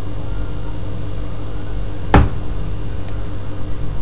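Steady low background hum, with one sharp click about two seconds in.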